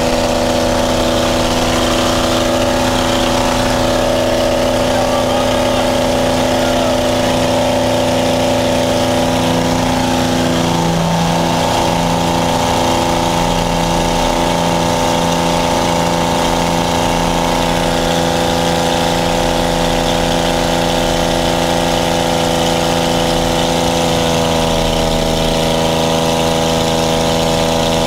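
UTVA-66's piston engine running loud and steady at high power during the takeoff roll and climb, heard from inside the cabin. Its note shifts about ten seconds in and again near the end.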